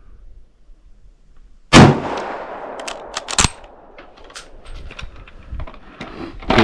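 One shot from a Yugoslavian Steyr M95M straight-pull rifle in 8mm Mauser, about two seconds in, with its echo trailing off. About a second later come a few sharp metallic clacks of the straight-pull bolt being worked, then lighter clicks.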